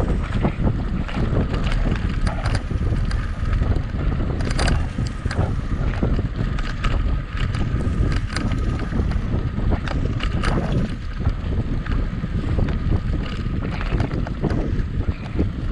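Wind buffeting the microphone of a camera riding on a mountain bike at race speed, with scattered clicks and knocks from the bike over rough trail.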